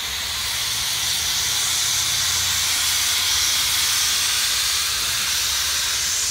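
Small steam switcher locomotive blowing steam from low at the front, around the cylinders: a loud, steady hiss, with a low rumble underneath.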